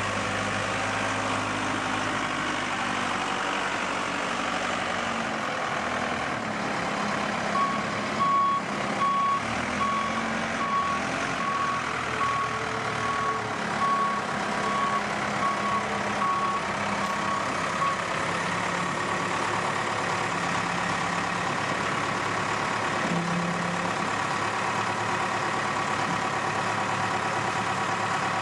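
Diesel engine of a Case 580SL tractor loader backhoe running, its speed rising and falling for a while, with a backup alarm beeping steadily for about ten seconds partway through as the machine reverses.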